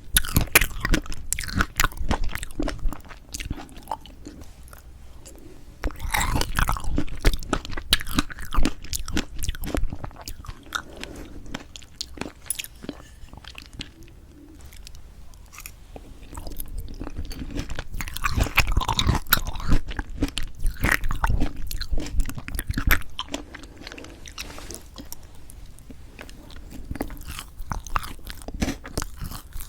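Close-miked chewing and biting of strawberry chocolate cream cake, with sticky, clicky mouth sounds that come in louder bunches between quieter stretches of chewing.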